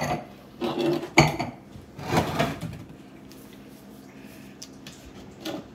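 Stemmed wine glasses being set down on a kitchen countertop: several knocks and clinks in the first two and a half seconds, then one more light knock near the end.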